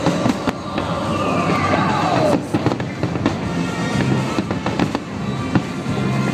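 Fireworks finale: a dense barrage of aerial shells bursting in quick succession, many sharp bangs over constant crackling, with music playing underneath.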